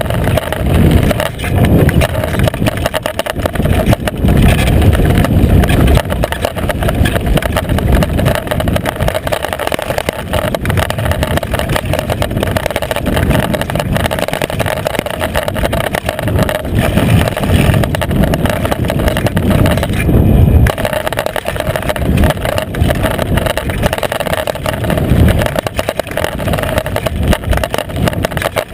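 Downhill mountain bike rolling fast over a loose gravel trail, heard through a seatpost-mounted action camera: a loud, continuous rumble and rattle of the knobby rear tyre and bike, with wind on the microphone.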